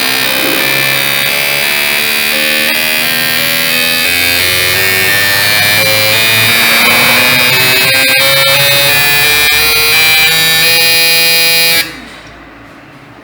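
Electronic background music with a stepping synth melody. It cuts off abruptly about a second before the end.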